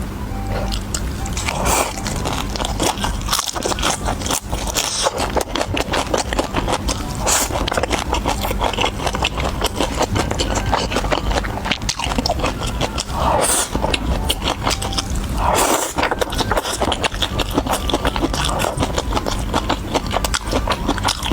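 Close-miked eating: steady chewing with many small crunchy clicks, and a few louder bursts of noise now and then.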